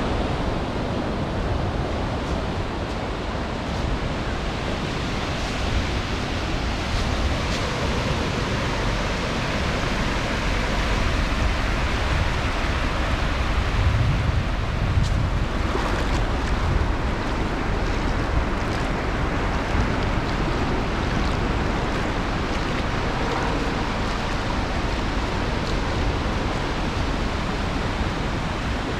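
Ocean surf breaking on a sandy beach: a steady wash of waves, swelling briefly about halfway through.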